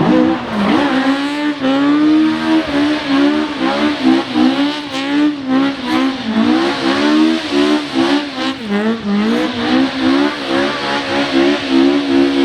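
Rally car engine revving on a stage, its pitch rising and dipping again and again as the throttle is worked, starting abruptly.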